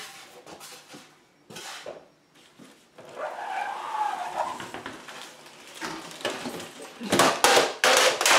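Cardboard box and plastic packaging being handled as a boxed RC truck is pulled out: rustling and scraping, with a wavering squeak of something rubbing about three seconds in and loud crinkling of the plastic bag near the end.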